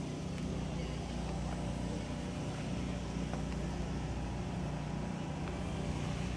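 A car engine idling steadily, a constant low drone that neither rises nor falls.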